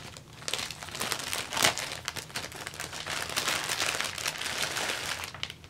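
Clear plastic bag crinkling and rustling as it is handled, a dense run of crackles that stops near the end.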